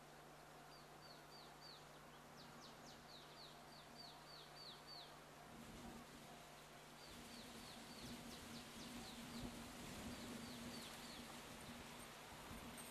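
Faint sound: a small bird calling in quick series of short falling chirps, repeated in several bouts. From about halfway a low, steady hum grows slowly louder as a JR Freight DF200 diesel-electric locomotive approaches.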